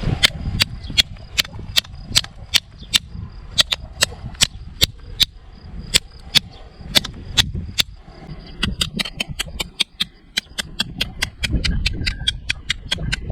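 Victorinox Hunter Pro pocketknife's blade edge struck repeatedly against a hard material in an edge-retention test, a sharp click with each stroke. The clicks come about two to three a second, then quicker, about four a second, in the last third. The edge ends up damaged.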